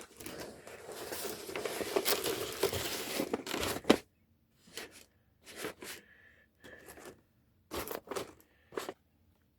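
Newspaper being torn and crumpled by hand for plaster-soaked scenery: about four seconds of continuous tearing and rustling, then several short rustles.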